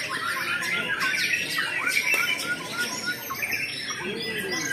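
Many caged white-rumped shamas (murai batu) singing at once: a dense, continuous overlap of quick, varied whistled phrases and chattering notes.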